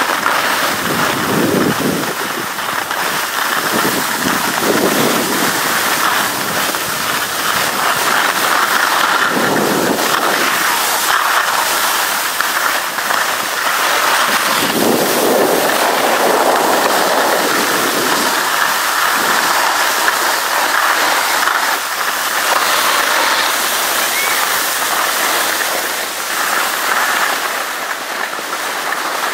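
Skis sliding and scraping over packed snow on a downhill run, a steady rushing noise, with deeper swells of wind on the microphone a few times.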